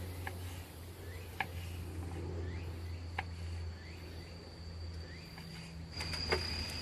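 Insects trilling in one steady high tone that grows louder near the end, over a low steady hum. Scattered sharp pops like a wood campfire crackling come through, and a quick cluster of clicks sounds near the end.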